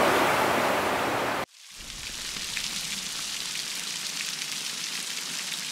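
Rushing water of the Severn bore tidal wave, cutting off suddenly about a second and a half in. Rain on a tent then fades in and holds steady, with scattered drop hits.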